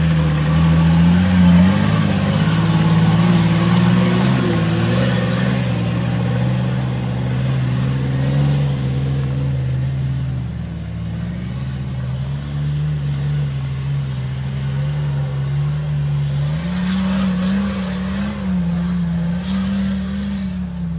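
Off-road 4x4's engine working hard as it crawls up a rocky slope, its revs rising and falling, then climbing again about sixteen seconds in.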